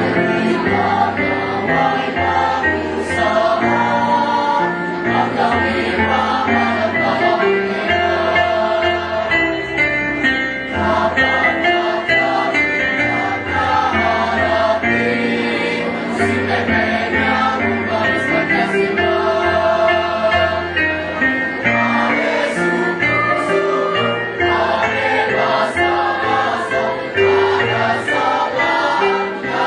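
A choir singing a song in several voice parts, with long held notes over a low bass line.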